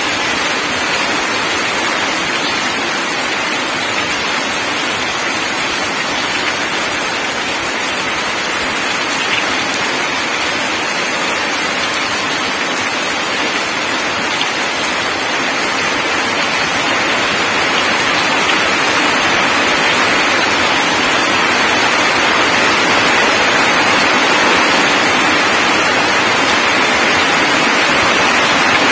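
Heavy rain pouring down and splashing on wet ground and puddles, a dense steady hiss that grows a little louder in the second half.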